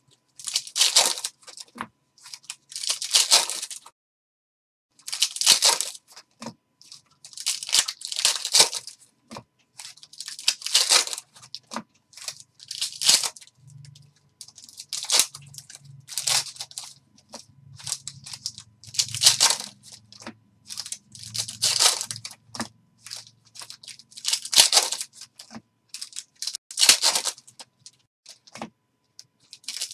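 Foil basketball-card packs being torn open and their wrappers crinkled as the cards are pulled out and handled, in short crackly bursts about once a second.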